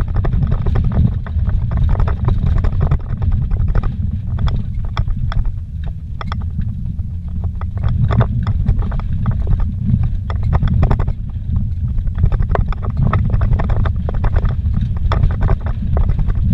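Vehicle driving fast over a rocky dirt road, heard from inside the cabin: a steady low rumble with frequent, irregular knocks and rattles from the rough, stony surface.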